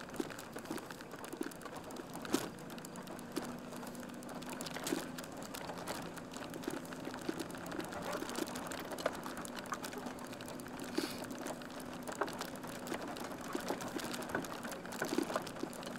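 Inside a van's cabin as it rolls slowly over rough pasture: the engine runs with a low steady hum, and frequent small rattles and clicks come from the van body.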